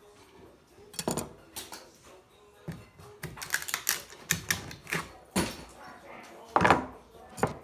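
Irregular knocks, clacks and scrapes of hand demolition work with a hand tool on a wall, the loudest knocks a little before the end.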